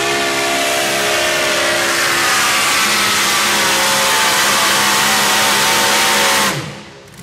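Supercharged engine of a super modified four-wheel-drive pulling truck running flat out as it drags a weight-transfer sled, its pitch slowly sinking under the load. The engine cuts off suddenly about six and a half seconds in as the pull ends.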